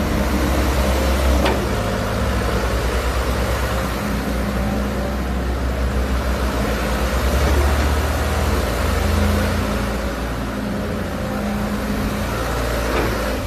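Hitachi EX60-1 mini excavator's diesel engine running steadily, with two short sharp knocks, one about a second and a half in and one near the end.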